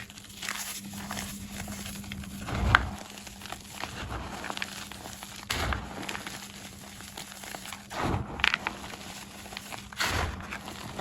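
Black-dyed gym chalk blocks being crushed, with a steady crackly crumble and four louder crunches spaced a few seconds apart as fresh pieces break.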